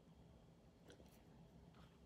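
Near silence, with a few faint soft clicks about a second in and again near the end, from lip balm being rubbed over the lips.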